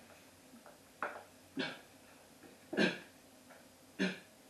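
A person coughing and hacking in short, harsh bursts, four of them roughly a second apart, acting out a choking fit.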